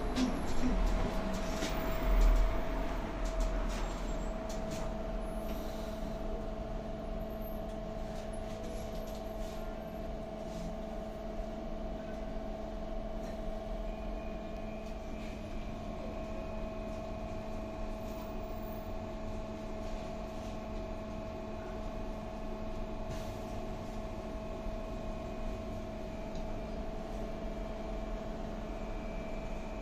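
Inside a trolleybus on the move: a steady electric whine from its drive and auxiliary equipment over road rumble. A brief thump about two seconds in.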